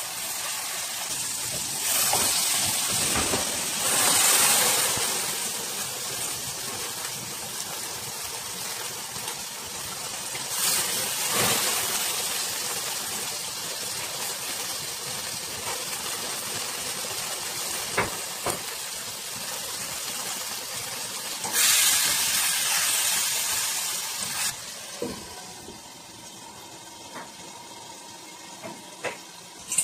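Pork steaks sizzling in a hot frying pan, the hiss swelling louder several times, with a few sharp clicks. Near the end the sizzle drops and is muffled under a glass lid.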